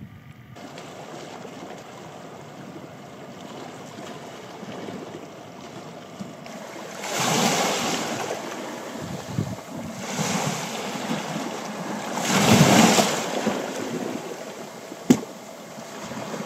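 Sea surf and wind on the coast: a steady rush with three louder swells of waves washing in, and one sharp click near the end.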